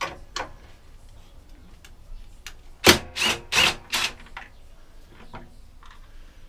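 Hand tools and metal mower parts knocking and clattering while a wheel is worked off a lawnmower's front axle: a few light clicks, then four sharp, loud metallic knocks in quick succession about three seconds in.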